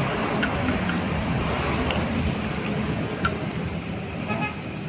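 Steady road-traffic noise with a short vehicle-horn toot near the end, and a few light metallic clicks from hand tools.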